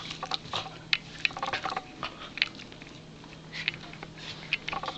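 Pembroke Welsh Corgi chewing and snuffling close to the microphone: a run of irregular short clicks and snaps.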